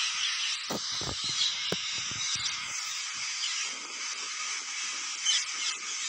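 A large flock of green parakeets calling all at once from a tree, a dense, unbroken chorus of high screeches. A few low thumps come in the first two seconds.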